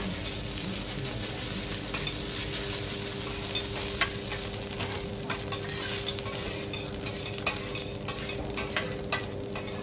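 Food sizzling on a teppanyaki iron griddle, with a metal spatula clicking and scraping against the hot plate several times.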